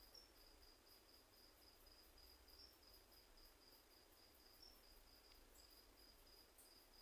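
Nesonotus reticulatus katydid stridulating faintly: an even series of short high-pitched chirps, about three a second.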